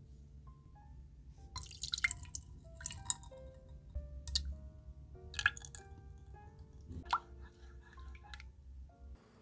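Milk and cream splashing and dripping as they are poured into a saucepan and stirred, in several short bursts over gentle background music.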